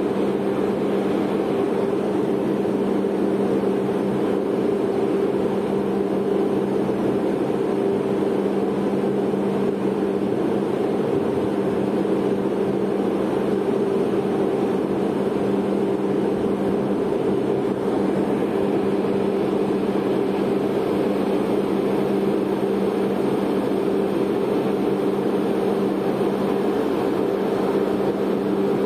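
A ship's engines and machinery droning steadily: a constant low hum over an even rushing noise, unchanging throughout.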